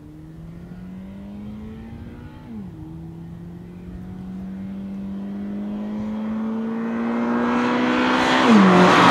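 2013 Subaru BRZ's 2.0-litre flat-four engine accelerating along the road, rising in pitch, shifting up once about two and a half seconds in, then pulling up through the revs again. It grows steadily louder as the car approaches and drops in pitch as it passes near the end.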